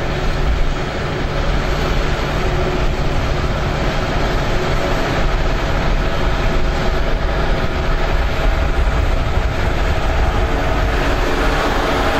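Engines of a convoy of old New Holland Clayson combine harvesters running as the machines drive past on the road, a steady mixed engine drone with a heavy low rumble.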